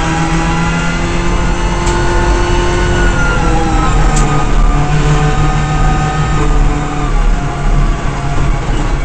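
Subaru S14 WRC rally car's turbocharged flat-four engine at stage speed, heard from inside the car, its pitch stepping and sliding with gear changes and throttle. Two short sharp clicks come about two and four seconds in.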